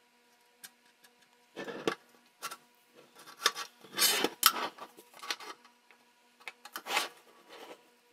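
Irregular rubbing and scraping strokes of uneven length, as in hand work on a part, loudest about four seconds in.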